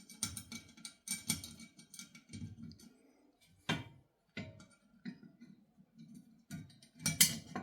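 Irregular light metallic clicks and taps: a stainless bolt being handled and started into the heating element and boiler by hand.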